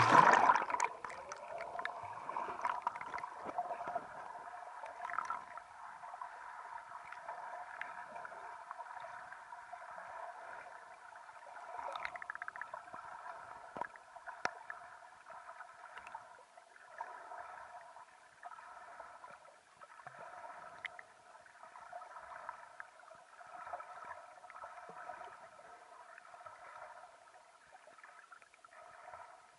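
A camera plunges into lake water with a loud splash right at the start. Muffled underwater gurgling and water noise follow, heard through the submerged camera, with a few faint clicks.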